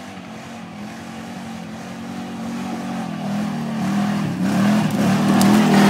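An ATV engine running and drawing closer, getting steadily louder, with the revs rising and falling in the last couple of seconds.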